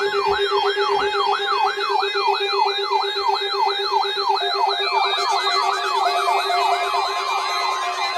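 Electronic siren-like warning alarm tone sounding during a weekly warning alarm test. It is a rapid rising-and-falling yelp, about three times a second, over a steady low tone. About five seconds in, a second copy of the yelp joins out of step with the first.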